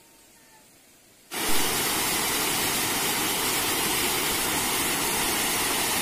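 Steady rush of falling water at a dam, loud and even, cutting in suddenly about a second in after near silence.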